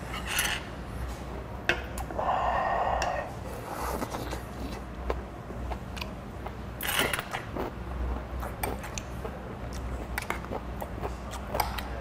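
A man eating hot food: chopsticks and a metal spoon clicking and scraping against bowls and an earthenware pot, with huffing breaths over the hot food, one near the start and a louder one about seven seconds in.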